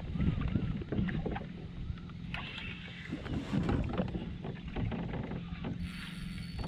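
Water sounds and handling noises on a fishing kayak: water sloshing against the hull with irregular knocks and clicks.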